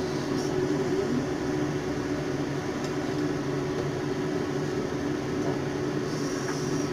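Steady hum of a small motor, with a few faint clicks and a faint hiss near the end.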